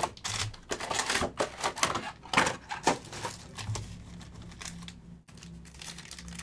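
Foil trading-card packs and their cardboard hobby box being handled: a quick run of clicks, taps and crinkles that thins out after about three seconds.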